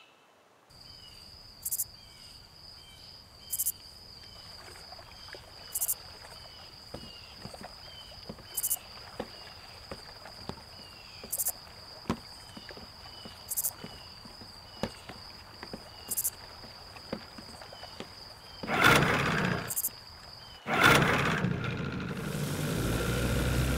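Dusk nature ambience: a steady high insect trill, short chirping calls about every two-thirds of a second, and a sharper call every two seconds or so. Near the end come two loud rushing bursts, then a low rumbling rush of an outboard motor's propeller churning the water.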